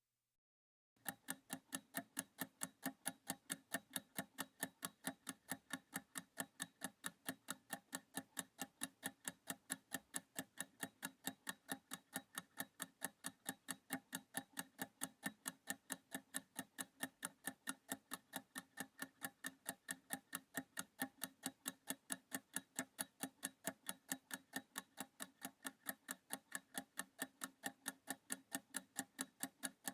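Ticking-clock sound effect timing a 30-second reading exercise: faint, even ticks about four a second, starting about a second in.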